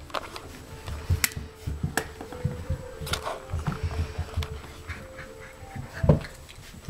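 Golden retriever puppies about three and a half weeks old playing and wrestling: faint whines and small vocal sounds mixed with scuffling and small knocks, and a sharper knock about six seconds in.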